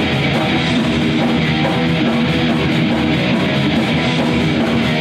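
Heavy metal music with electric guitar playing steadily and loudly.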